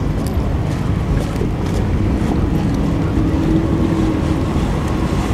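Low, continuous rumble of a car's engine and exhaust, with wind buffeting the microphone and a faint steady tone rising out of it partway through.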